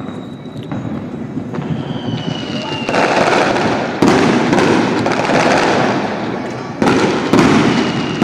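Many fireworks going off across a city at once: a dense, unbroken rattle of overlapping bangs and crackles. It swells sharply about three seconds in, with sudden louder volleys about four and seven seconds in, and a faint high whistle falls in pitch about two seconds in.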